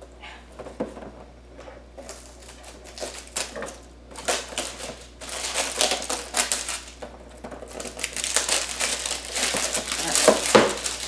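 Toy packaging being handled and torn open by hand: irregular crinkling and crackling, sparse at first and busier and louder from about two seconds in.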